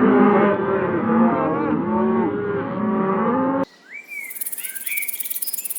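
Several cattle mooing at once, their calls overlapping. About three and a half seconds in, the sound cuts abruptly to short chirping bird calls over a fast, high insect trill.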